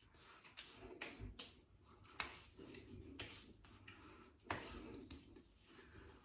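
Faint handling noises: scattered light taps and rubbing, with two sharper knocks about two and four and a half seconds in, as hands handle aftershave bottles and toiletries.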